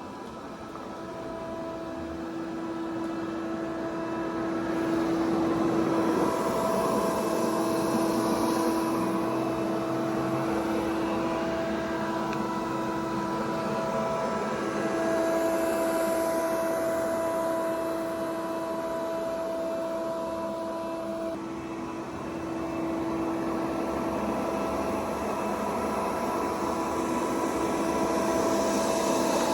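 Robot vacuum cleaner running: a steady motor hum with a whine over a hiss, getting louder and quieter every several seconds.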